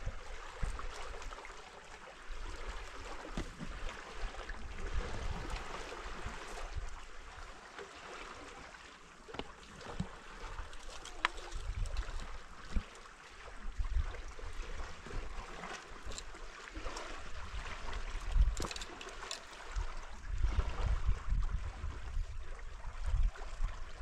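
River water rushing steadily, with irregular gusts of wind buffeting the microphone.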